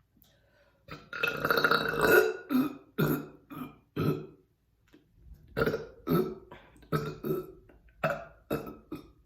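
A woman belching up gas from carbonated ginger ale: one long, loud burp about a second in, then a string of shorter burps in two runs with a brief pause in the middle.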